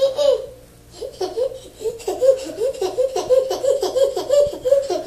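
High-pitched laughter: a short laugh at the start, then from about a second in a quick run of short laughs, about three a second.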